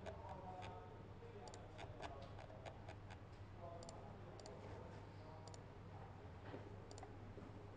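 Computer mouse clicking, a scattered series of soft clicks with several quick double clicks, over a faint steady low hum.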